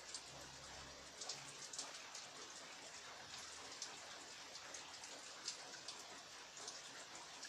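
Heavy rain falling: a steady hiss with irregular sharper taps of single drops hitting a surface.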